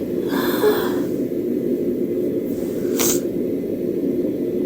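A person with a head cold sneezing: a breathy drawn breath near the start, then one short, sharp sneeze about three seconds in, over a steady low hum.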